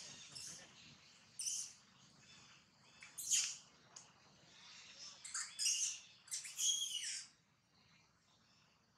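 A string of short, high-pitched chirping animal calls, about six of them, dying away near the end.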